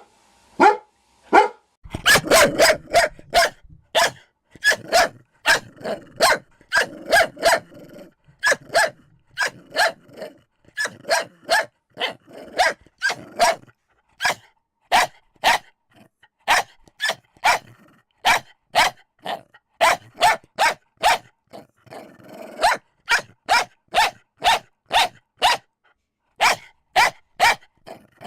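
Dogs barking in rapid repeated volleys, several barks a second, with a low growl under the barking for much of it.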